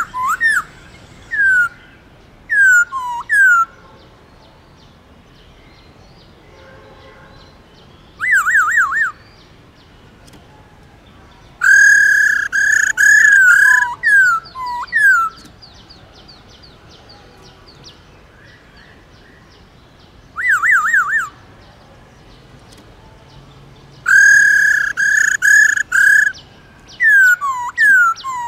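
Black-throated laughingthrush singing in phrases of loud, clear whistles: quick rising slurs, a fast trill of repeated rising notes, and longer rich warbled strophes, separated by pauses of several seconds.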